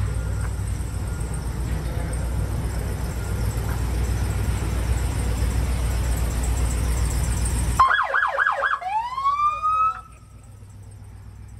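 Steady low rumble of the Ram 5500 light rescue fire truck running. About eight seconds in, its electronic siren sounds: a quick up-and-down yelp, then a rising wail that cuts off about two seconds later.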